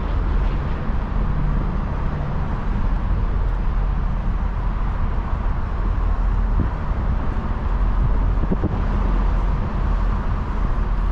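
A diesel engine idling steadily: a low, even rumble that holds the same level throughout.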